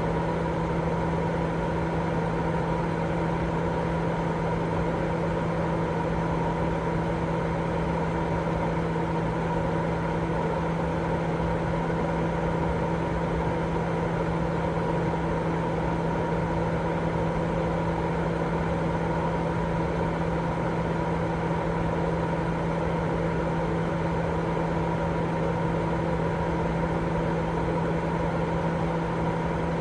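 Continuous baby-sleep noise: an even rushing noise, heavier in the lows than true white noise, with a constant low hum and a fainter steady tone above it, unchanging throughout.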